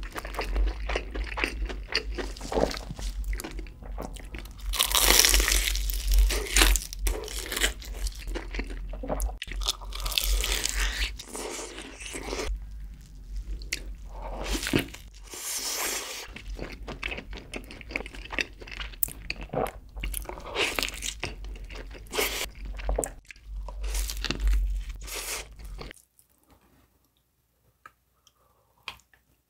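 Loud crunching bites into crispy fried chicken and a cheeseburger, with steady chewing between the bites. It goes almost silent for the last few seconds.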